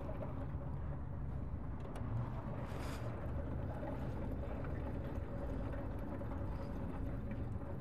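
Gasoline being poured from a red plastic gas can with a spill-proof nozzle into a car's fuel filler, over a steady low rumble; there is a brief hiss about three seconds in.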